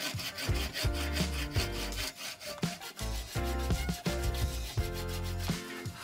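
Wooden-framed hand saw cutting through a wooden block held in a vise, in repeated back-and-forth strokes, over background music.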